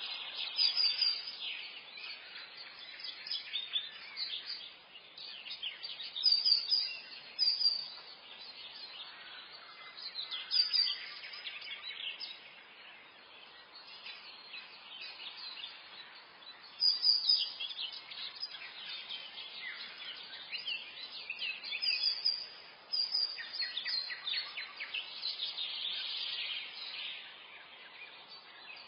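Morning forest chorus of several songbirds: overlapping chirps, tweets and short trills, in loud clusters a few seconds apart over a faint steady hiss.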